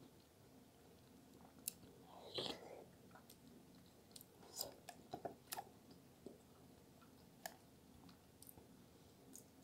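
Faint chewing and wet mouth sounds, with scattered soft clicks and scrapes as a spoon digs into a baked eggplant parmigiana in a glass dish. The fullest sound is a wet smack about two seconds in, and a cluster of clicks comes around the middle.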